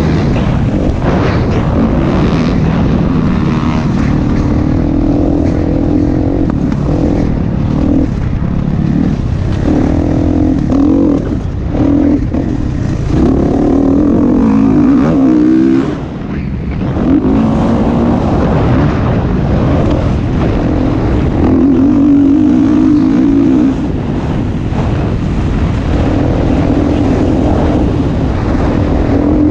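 Motocross bike engine revving hard and falling back again and again as the rider accelerates and shuts off between corners, with the throttle cut briefly just past the middle. Wind rumbles over the onboard camera microphone underneath.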